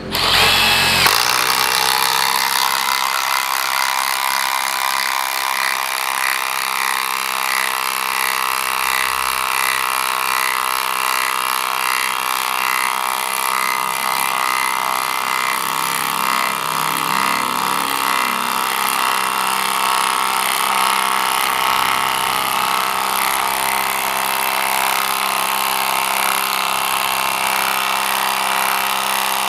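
Milwaukee M12 FID cordless impact driver hammering under heavy load as it drives a long bolt, about 15 cm by 10 mm, into a block of very hard wood. The hammering starts abruptly and goes on steadily at an even level.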